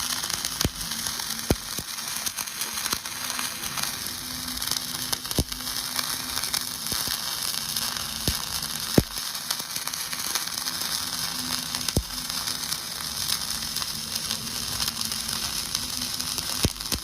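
Flux-core arc welding: the arc sizzles and crackles steadily while laying a vertical-up root pass. A few sharp pops stand out every few seconds, the loudest about nine seconds in.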